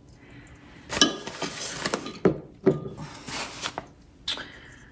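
Glassware and a small glass bottle set down on a countertop with about four sharp clinks and knocks, and a paper flour bag rustling as it is moved in between.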